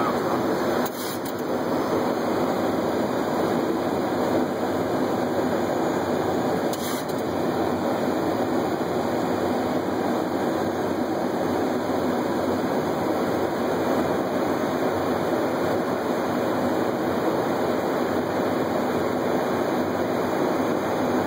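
Steady rushing noise of air and engines on a Boeing 737 flight deck during final approach, with two brief clicks, one about a second in and one about seven seconds in.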